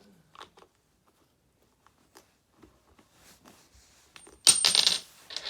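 Faint clicks and handling noises, then about four and a half seconds in a short, loud metallic clatter with a thin high ring, like a small metal part or tool being set down during RC car reassembly.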